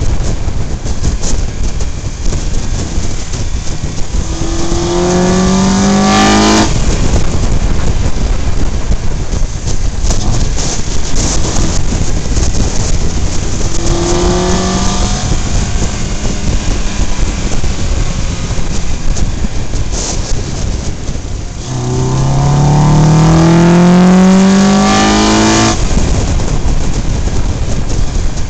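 Steady wind rush and road noise on a moving camera's microphone, with a motor vehicle engine accelerating three times, rising in pitch and cutting off suddenly each time. The third rise, about two-thirds of the way through, is the longest and loudest.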